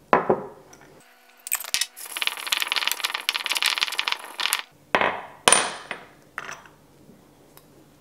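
Stone mortar and pestle grinding dried oregano: about two and a half seconds of gritty scraping with rapid small strikes of the pestle in the bowl. A few sharp knocks of stone on stone come at the start and again a little after the grinding.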